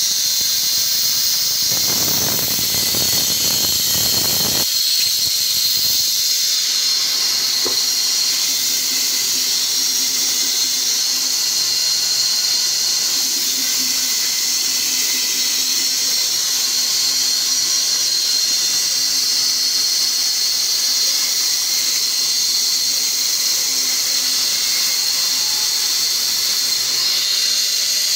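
Large band saw running with a steady high-pitched whine and hiss as a log is fed through the blade, with a deeper rushing noise for a couple of seconds near the start.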